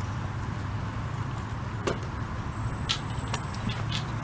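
Steady low hum, like a distant motor, with a few sharp ticks, the clearest about two seconds in and another about a second later.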